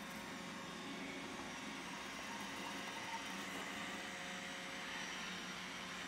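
iRobot Roomba robot vacuum running steadily, a constant whirring hum with faint steady whine, as it drives along the floor.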